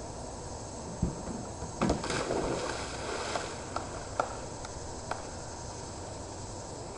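A thump about a second in, then a splash as a person jumps into an above-ground backyard pool, followed by churning water with a few sharp slaps.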